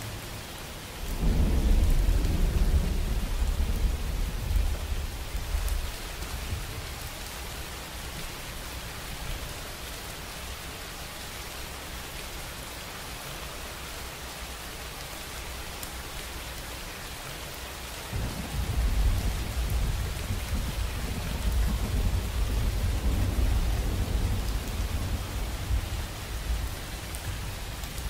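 Steady rain hiss with two rolls of thunder. The first rumble starts suddenly about a second in and fades over several seconds. The second starts about two-thirds of the way through and rumbles on until near the end.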